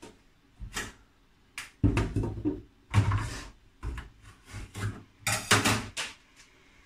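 Irregular clatter and knocks of kitchenware being handled, a dozen or so sharp sounds at uneven intervals, loudest in the middle and near the end.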